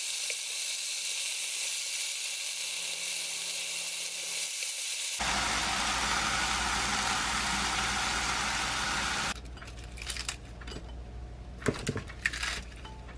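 Thin slices of beef sizzling in a nonstick frying pan, a steady hiss that grows fuller and a little louder about five seconds in. About nine seconds in the sizzle cuts off, giving way to soft crinkles and taps of torn lettuce being laid on a plate.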